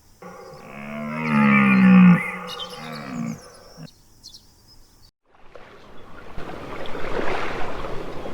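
A large animal's long, low call with a stack of harmonics, wavering in pitch and loudest about two seconds in, lasting close to four seconds. After a short break, a steady rushing noise sets in near the end.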